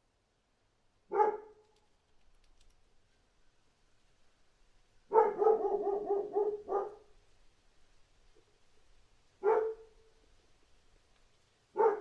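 A dog barking: one sharp bark, then a quick burst of rapid barks lasting under two seconds, then two more single barks spaced a couple of seconds apart.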